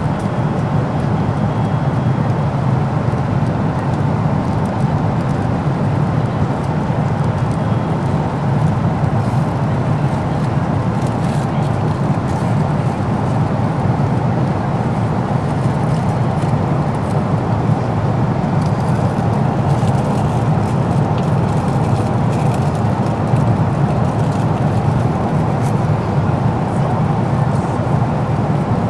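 Steady cabin noise of an Airbus A330-300 climbing after take-off: the engines and the rush of air, heard from inside the passenger cabin, an even low drone.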